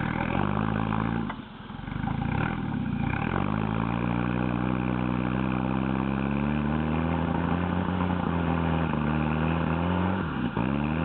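Off-road vehicle's engine pulling under load. It revs up and holds, with a brief drop about a second and a half in and a sharp dip near the end.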